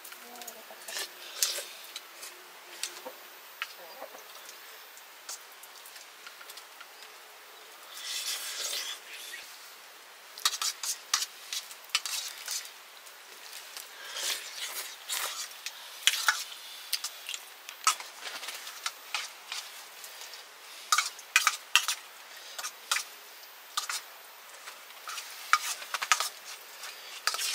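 Metal spoons and utensils clinking and scraping against metal plates and pots in irregular sharp clicks, with a longer scraping noise about eight seconds in.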